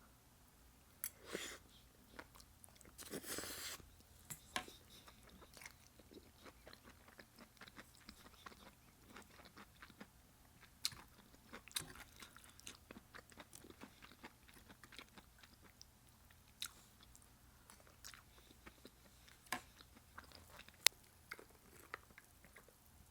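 Close-miked chewing and biting of vegetables dipped in cheese dip: scattered small wet clicks and crunches, with two longer crunching bursts about a second and three seconds in.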